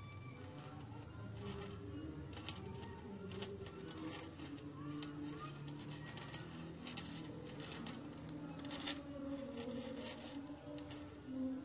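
Small irregular clicks and rustles of a metal crochet hook and yarn as single crochet stitches are worked, the sharpest click about nine seconds in. Faint background music with soft held notes runs underneath.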